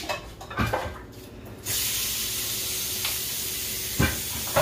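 A kitchen faucet is turned on about one and a half seconds in and runs steadily into a stainless steel sink, after a few clinks of dishes. There is a knock of a dish near the end.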